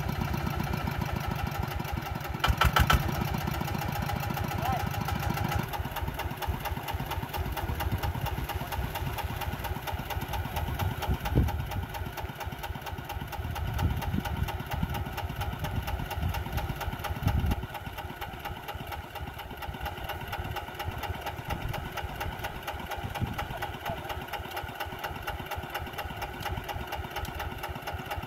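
Kubota engine running with a rapid, even beat, a few brief louder moments, and a somewhat quieter run in the last third.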